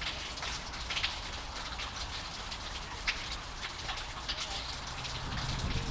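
Water trickling and dripping at a stormwater drain outlet: a soft, scattered patter. Wind rumbling on the microphone comes in near the end.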